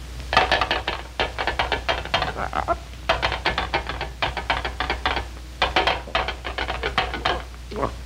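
Rapid crunching clicks, about seven a second, in three runs with short breaks: a cartoon sound effect of a bird chomping its way through a metal license plate.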